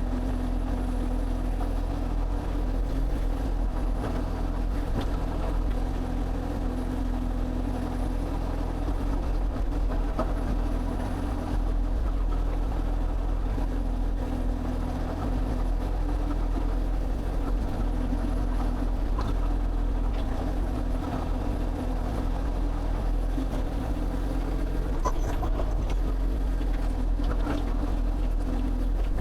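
Excavator's diesel engine running steadily, a constant low drone.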